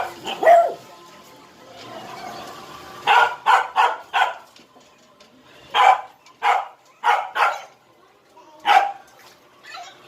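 Beagle barking: short, sharp barks in irregular runs, four in quick succession about three seconds in, then several more spaced out.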